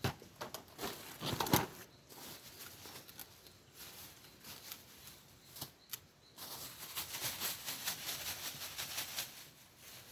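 Handling noise: a small plastic bag crinkling and rustling with scattered clicks, and a louder bump about a second and a half in. The crinkling grows denser and steadier from a little past halfway until near the end.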